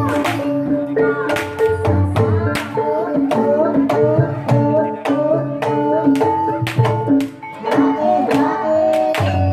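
Javanese gamelan music of the kind played for an ebeg trance dance: ringing struck metal notes over a steady run of hand-drum strokes.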